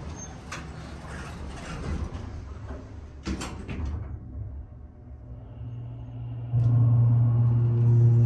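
Schindler hydraulic elevator doors sliding shut, closing with a knock about three seconds in. About six and a half seconds in, the hydraulic pump motor starts with a sudden loud, steady low hum as the car starts up.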